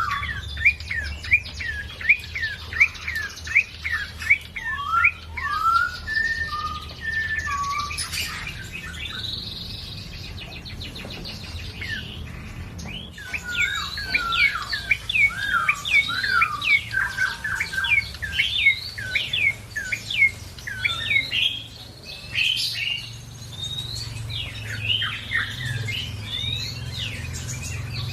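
A prenjak coki songbird singing a fast, chattering string of sharp, sliding chirps. It thins to a few scattered calls for several seconds near the middle, then starts again just as densely. A steady low hum runs underneath.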